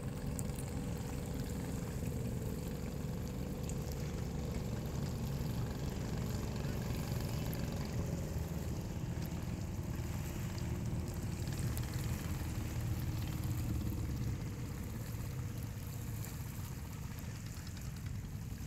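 Distant fibreglass speedboat's engine droning steadily out at sea, under low wind rumble on the microphone and lapping water. The sound drops a little about two-thirds through.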